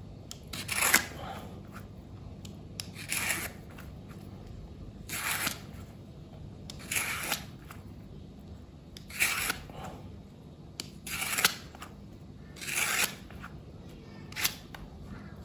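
A Y-shaped vegetable peeler scraping strips of skin off a white radish (daikon), in about eight short strokes roughly two seconds apart.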